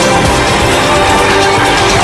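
Loud background music, dense and unbroken.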